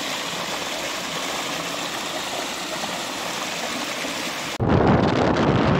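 Water gushing from a pipe outlet into a brick-lined channel and splashing over stones: a steady rushing. About a second before the end it cuts abruptly to a louder, low rumble.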